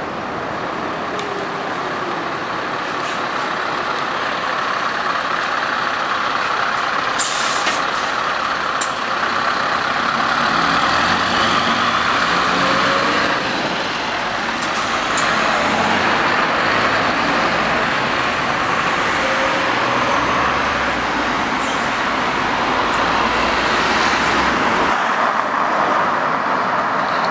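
Scania R580 truck's V8 diesel engine running as the truck drives along the road, getting louder as it comes near, over steady tyre and road noise. A brief sharp hiss of air comes about seven seconds in.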